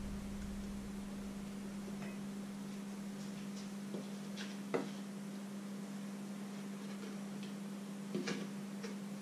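A steady low hum, with a few faint light clicks and knocks about four and eight seconds in as a plastic jug of batter is tipped over a steel mixing bowl.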